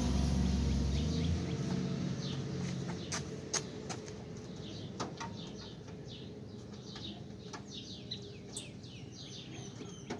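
A vehicle's low running sound fades out in the first second or so, then small birds chirp repeatedly in quick falling notes, with a few sharp clicks scattered among them.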